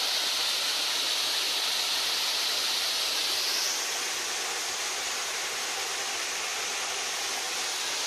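A small waterfall running steadily, a continuous rush of water falling onto rock and into a pool. It drops slightly in level a little before halfway through.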